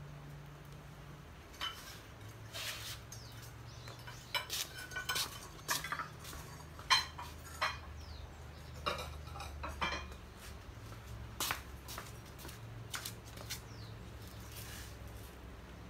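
Glaze-fired ceramic plates and cups clinking and knocking against each other and against the kiln shelves as they are unloaded, an irregular string of sharp clinks with brief ringing that starts a second or two in.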